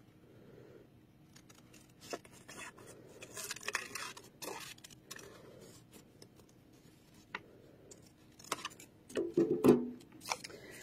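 Scissors snipping through white construction paper in short, irregular cuts with pauses between. A louder rustle of the paper being handled comes near the end.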